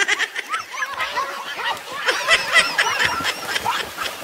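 Several children shrieking and shouting over each other while splashing about as they swim.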